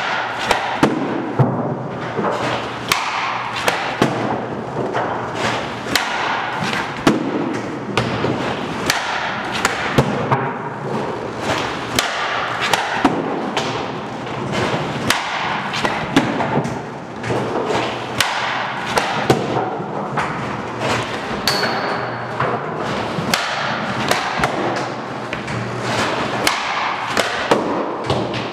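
Hockey shooting practice on a synthetic shooting pad: a rapid, steady string of sharp cracks, about one to two a second, as the stick strikes puck after puck and the pucks hit the target and backstop.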